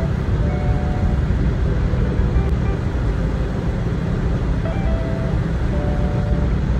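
Steady low road and engine rumble heard inside a car as it drives on a snow-covered road. A faint melody of short held notes comes and goes over it, near the start and again after about four and a half seconds.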